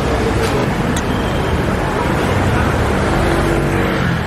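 Steady road traffic noise from cars and buses moving through a busy city square, with two brief clicks about half a second apart in the first second.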